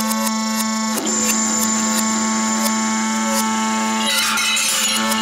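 Electronic noise music: a dense drone of steady stacked tones with irregular clicks running through it. The tones shift to a new set about a second in, and a hissing burst of noise comes in near the end.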